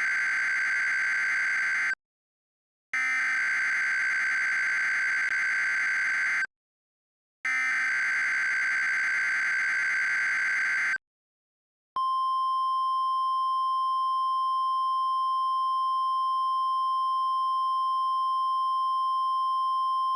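Emergency Alert System SAME header: bursts of rapidly switching data tones, the end of one and then two more, each about three and a half seconds long with a second's gap between, encoding a tornado emergency alert. About twelve seconds in, a steady single-pitch attention alarm tone begins and holds.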